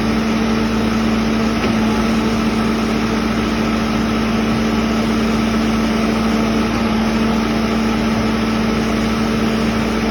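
Backhoe loader's engine running steadily at one speed, with no revving.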